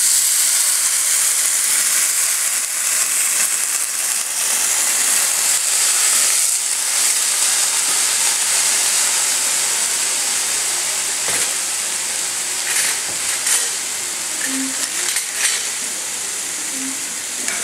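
Green beans sizzling in a stainless-steel frying pan of hot oil seasoned with mustard seeds and urad dal, just after the beans went in. A steady hiss that eases slightly over time, with a few sharp clicks in the second half.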